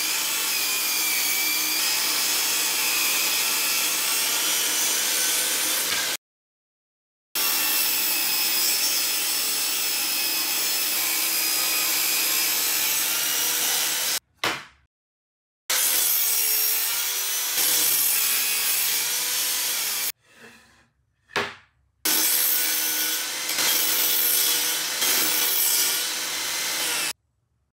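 Table saw running and cutting through softwood 2x4 lumber: a steady motor whine under the noise of the blade ripping through the wood. The sound comes in several stretches, each of which stops abruptly.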